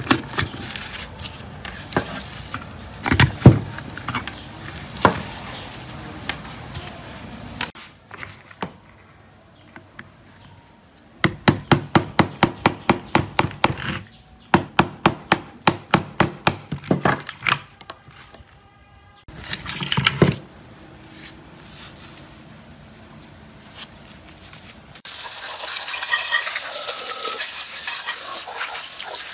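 Hand tools knocking, tapping and clicking on an old hacksaw's metal motor housing as it is taken apart, including a quick run of evenly spaced taps about midway. Near the end a pressure washer's water jet hisses steadily onto the rusty parts.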